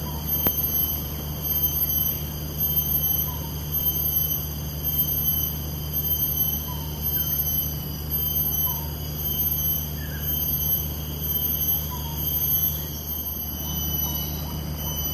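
Steady outdoor ambience: insects buzzing in several high pitches over a low steady hum, with a few faint short chirps scattered through.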